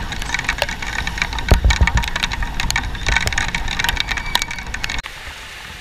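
Wind rumbling on an action camera's microphone on a moving motor scooter in rain, with many sharp clicks of raindrops striking the camera. About five seconds in, the sound cuts abruptly to a quieter, steady rain hiss.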